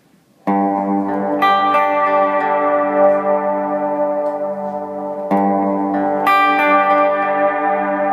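Electric guitar chords, a Gibson ES-335 through a Swart AST amp, washed in a long, modulated reverb from a Neunaber Stereo Wet pedal. The first chord comes in about half a second in, with more notes added soon after, and a new chord about five seconds in, each ringing on into a lingering tail.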